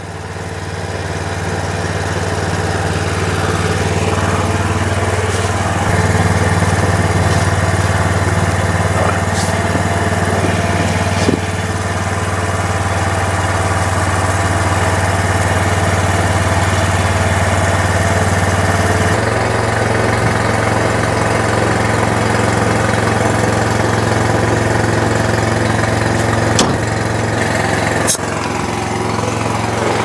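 A diesel engine running steadily. Its note builds over the first few seconds and shifts about two-thirds of the way through, with a couple of sharp clicks near the end.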